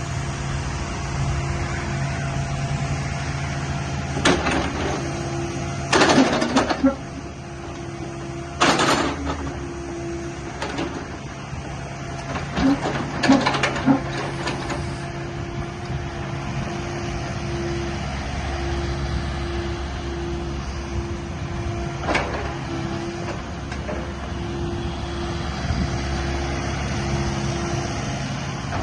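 Kubota KX080-4 tracked excavator's diesel engine running steadily, with a pulsing mechanical hum. Several brief, louder noises come through it at about 4, 6, 9, 13 and 22 seconds in.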